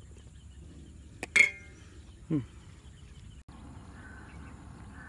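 Metal spatula knocking against a steel vessel while mixing a thick snail batter, with one sharp ringing clang about a second and a half in, followed a second later by a short sound falling in pitch. After a cut near the middle, faint outdoor chirping over low background.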